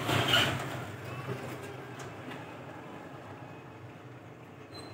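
Metal sewing machine parts worked by hand as a new rotary hook is pressed onto the lower shaft: a short scrape at the start, then a few light clicks. A low steady hum runs underneath.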